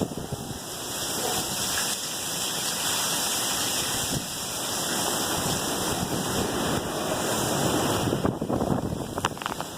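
Hurricane wind and heavy rain rushing, with gusts buffeting the microphone. It swells through the middle and eases near the end.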